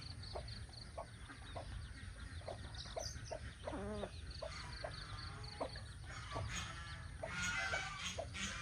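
Mother hen clucking in short, repeated low calls while her chicks peep in quick high-pitched trills. Louder, harsher fowl calls join near the end.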